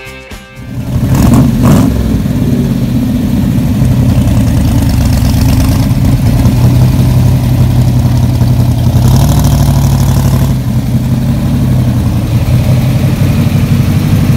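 Engine of a custom first-generation Ford Mustang fastback with a side-exit exhaust, idling with a loud, steady low rumble that comes in sharply about a second in.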